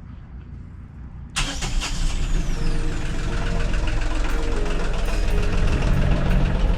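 New Volvo Penta marine diesel engine starting: after a quiet moment it comes in suddenly about a second and a half in and keeps running steadily and loudly.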